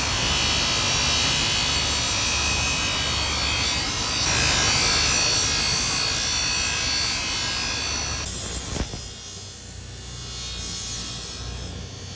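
Steel blade of a large fish-cutting knife ground against a spinning bench-grinder wheel, a steady grinding hiss as the edge is sharpened. About eight seconds in the sound drops to a quieter, thinner grind.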